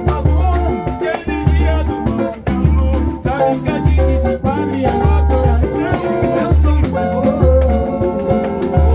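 Samba played live: a deep drum beating about once a second under a shaker, with a melody line bending over it.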